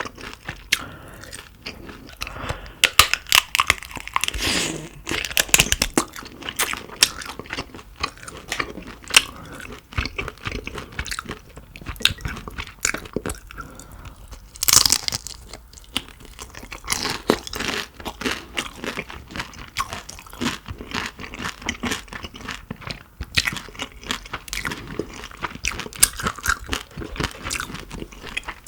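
Close-miked eating sounds: many sharp, irregular crunches and chewing, typical of biting through crispy butter-grilled shrimp heads.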